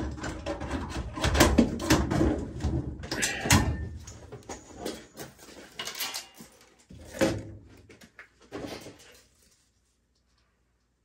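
Clattering knocks and scrapes of hand work at an oil furnace's open clean-out, busiest in the first few seconds, then sparser, dying away about nine seconds in.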